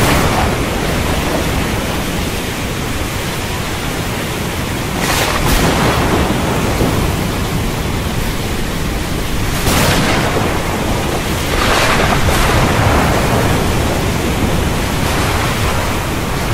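Thunderstorm: a constant hiss of heavy rain over a low rumble of thunder, with thunder cracking through several times, around five seconds in, near ten seconds, twice around twelve seconds and again near fifteen.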